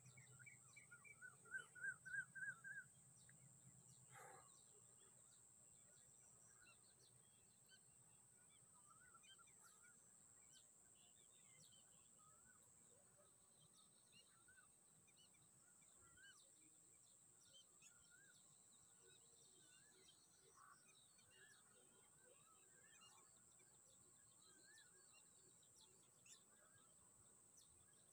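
Quiet marsh ambience with faint, scattered bird chirps from several birds and a quick run of rapid repeated chirps in the first few seconds, over a steady high-pitched hiss.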